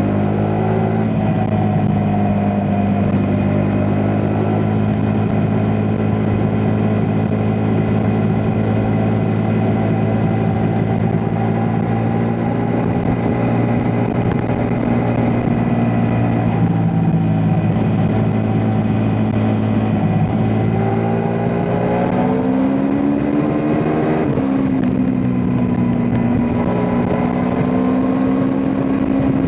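Ducati Multistrada V4 S's V4 engine running under way at a steady cruising pitch. Near the end the revs climb for about two seconds, then fall sharply and settle to a steady note.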